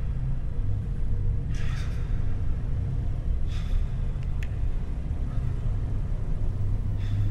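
Low, steady rumbling drone of a horror-film soundtrack, with three short airy rushes spread through it.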